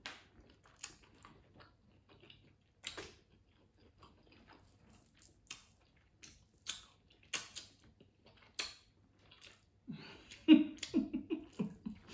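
Close-miked eating of seafood boil shrimp: a string of short wet smacks, slurps and chewing sounds as the food is eaten by hand and sauce is sucked off the fingers. About ten seconds in there is a brief murmured voice.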